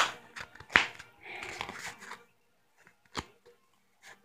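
A cut-open cardboard tube being handled and folded: a few sharp crackles of the cardboard creasing, with a short rustle in the middle.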